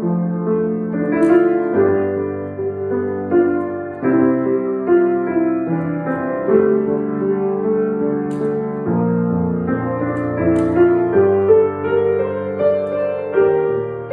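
Piano being played: a melody over held chords in the middle and low register, the notes sustained and changing at an unhurried pace.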